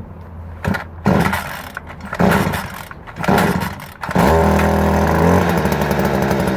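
Stihl FC56C edger's small engine firing in four short bursts, then catching and running steadily from about four seconds in.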